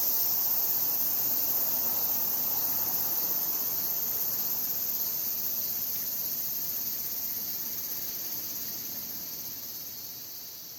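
Insects shrilling steadily in a high, continuous chorus, gradually fading out over the last few seconds.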